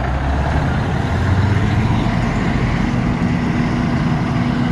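Heavy farm machinery engine running steadily. A steady hum joins the rumble about three seconds in.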